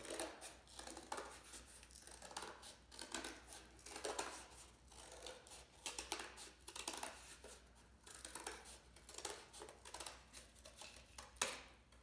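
Scissors cutting through cardboard in short, irregular snips, the blades opened wide and chopping. One snip near the end is louder than the rest.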